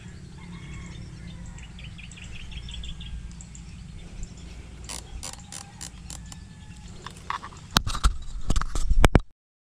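Small birds chirping over a low outdoor rumble. About halfway in, a run of sharp clicks and scrapes from handling the air rifle and gear begins, growing loudest near the end before cutting off suddenly.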